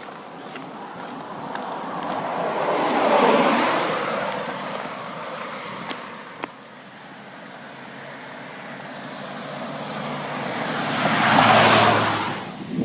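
Two cars passing one after the other on a road, each building to a rush of tyre and engine noise and then fading: the first about three seconds in, the second near the end.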